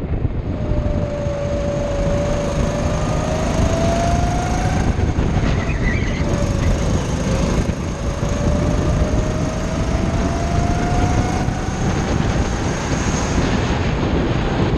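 Go-kart engine running under throttle, its pitch climbing steadily twice as the kart accelerates, dropping briefly in between. Heavy wind buffeting on the onboard microphone throughout.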